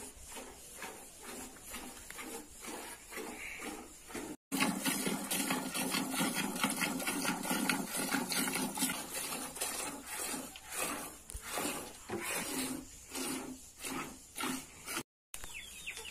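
Cow being milked by hand: milk squirting into a bucket in quick rhythmic jets, several a second, each pull of the teat a short hissing splash.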